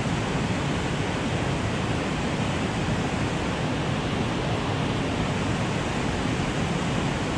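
Fast creek whitewater below a concrete dam spillway, rushing steadily with an even, unbroken noise.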